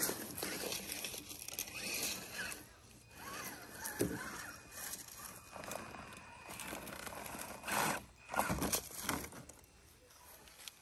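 Dry brush and leaves rustling and crunching, with louder crunches about four seconds in and again around eight to nine seconds.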